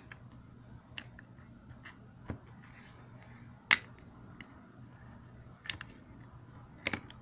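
Snap-off cutter blade cutting into the plastic barrel of a correction pen: about half a dozen sharp clicks and cracks at irregular intervals, the loudest a little past halfway.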